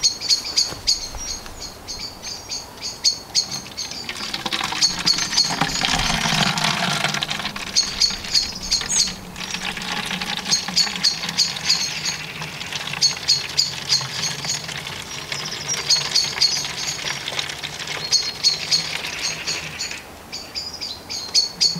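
Oak-bark tanning liquid poured from a jug into a plastic bottle: a steady splashing trickle from about four seconds in until near the end. A small bird sings throughout in repeated quick chirping phrases.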